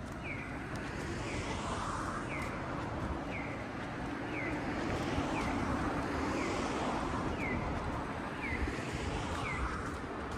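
A short falling electronic chirp, repeated evenly about every three quarters of a second, over a steady rushing noise of wind and distant traffic.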